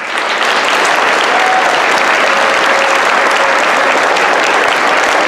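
Audience applauding: a crowd clapping steadily, starting all at once.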